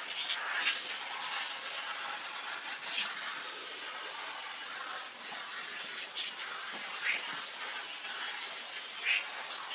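Water spraying from a hand-held hose spray gun onto a soaked rug and wet concrete, a steady hiss with a few brief louder spurts.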